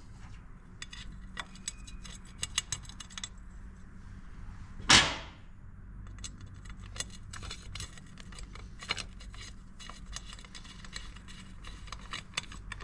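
Screws being driven into a Harley-Davidson Sportster's clutch inspection cover with a socket on an extension: scattered small metal clicks and clinks, with one loud knock about five seconds in.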